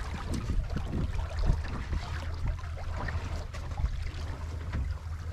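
Sea water lapping and slapping against the hull of a small boat, with an irregular scatter of small splashes and knocks over a steady low wind rumble on the microphone.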